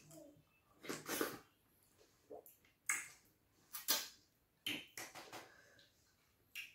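Close-up eating sounds of fufu and ogbono soup eaten by hand: a string of short, wet mouth noises and smacks at irregular intervals.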